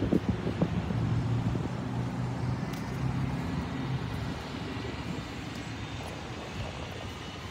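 Road traffic: a motor vehicle's engine hum passing on the road and slowly fading away.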